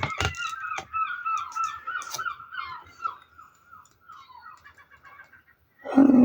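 A bird calling over and over, a quick run of short falling notes that fades away. Just before the end a much louder, lower-pitched sound begins.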